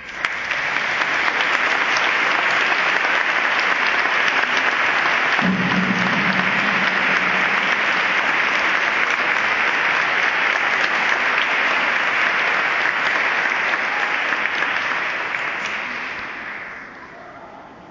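Audience applauding. The applause breaks out abruptly, holds steady, then dies away over the last couple of seconds.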